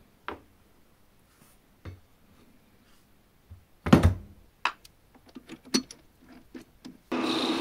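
Knocks and clicks of tools and parts being handled on a workbench, the loudest about four seconds in, followed by a run of small light clicks. Near the end a workshop machine starts up and runs steadily.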